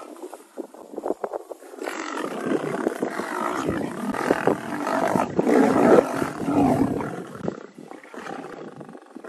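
Rough growling from a fight between lions and a leopard as a male lion mauls the leopard. It swells about two seconds in, is loudest in the middle and dies down near the end.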